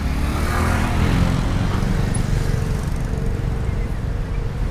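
Road traffic: a steady low rumble of vehicles, swelling as one drives past about a second in.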